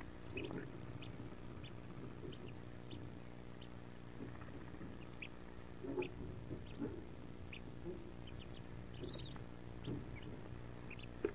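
Wood duck ducklings in a nest box giving short, high peeps here and there and shuffling against one another and the nest material, with a few louder scuffs, over a steady low hum.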